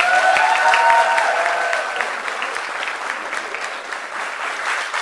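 Audience applauding, with a few voices calling out over the clapping in the first two seconds; the clapping eases off slowly after that.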